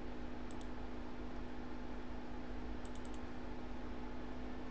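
A few faint clicks in two short clusters, about half a second in and again about three seconds in, over a steady low hum.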